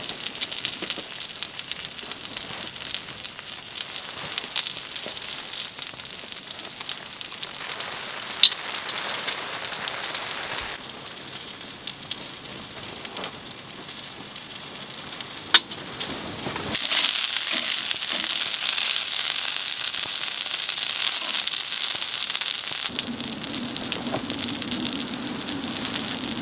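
Rain pattering steadily on a tent, in stretches that change abruptly and get louder and hissier past the middle, with two sharp clicks.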